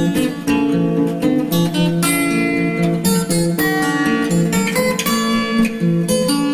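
Background music led by a strummed acoustic guitar, with steady chords changing every second or so.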